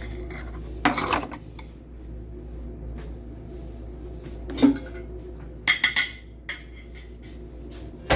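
Pots, pans and utensils clattering during cooking: separate knocks and clinks about a second in, just before five seconds, a quick run of them around six seconds and one more near the end, over a steady low hum.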